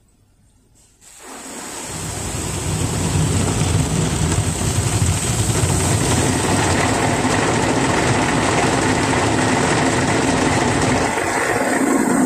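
Automatic car wash water jets spraying onto the car, heard from inside the cabin: a steady, loud rushing hiss of water on the roof and glass that starts suddenly about a second in and builds quickly.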